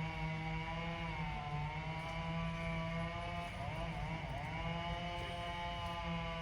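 An engine or motor running steadily, its pitch sagging briefly a couple of times.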